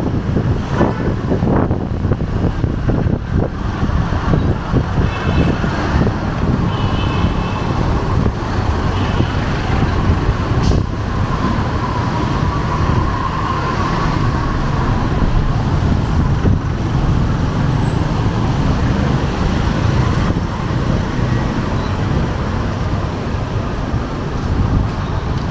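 City street traffic: car, tricycle and motorcycle engines running and passing in a steady low rumble, with a single sharp click about eleven seconds in.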